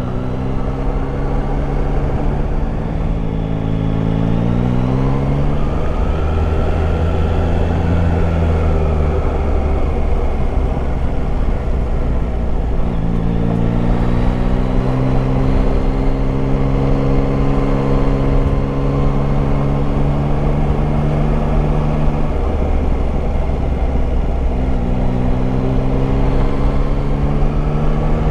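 Yamaha Tracer 9 GT's 890 cc three-cylinder engine running on the move, heard over steady wind and road rush at the helmet. The revs climb about two to five seconds in, then hold steady for a long stretch. Near the end they ease off and pick up again.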